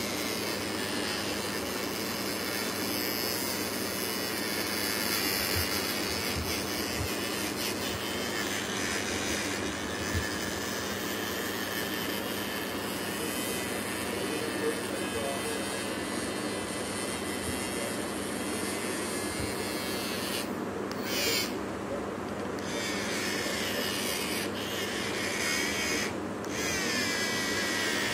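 Battery-powered toy bubble gun's small fan motor whirring steadily as it blows out bubbles, with a couple of brief breaks in the whir near the end.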